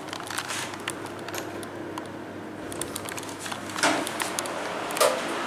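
Steady low machine hum inside the car of a 2007 Schindler hydraulic lift, with scattered small clicks and two louder knocks about four and five seconds in.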